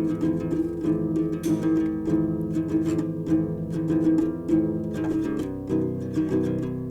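Instrumental music: an acoustic guitar picking a quick repeating pattern of notes, shifting to a new chord about five and a half seconds in.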